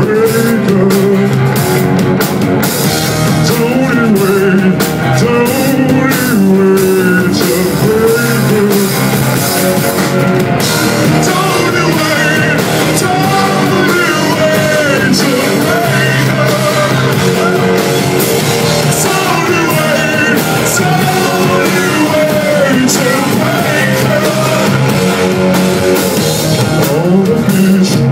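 Stoner rock band playing live on electric guitars, bass and drums, with a male voice singing, heard from the crowd.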